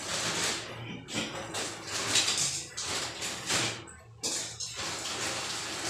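A sponge or cloth rubbing and scrubbing against a glass shower panel: several separate scratchy strokes, a brief pause about four seconds in, then steadier rubbing.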